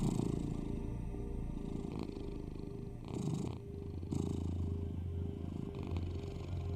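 Domestic cat purring in slow rounds that swell and fade with each breath, over a steady low hum.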